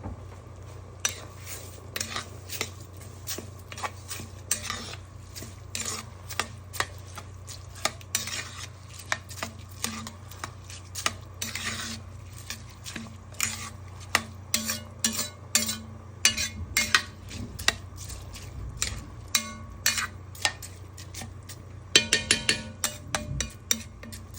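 A spoon stirring rice in a cooking pot, knocking and scraping against the pot in irregular clinks about once or twice a second, with a quick run of clinks near the end. The raw rice is being stirred into the oil and aromatics before the water goes in.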